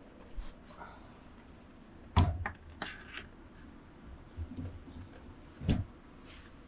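A few short, sharp knocks and clicks of parts and tools being handled. The loudest comes about two seconds in, with another strong knock near the end.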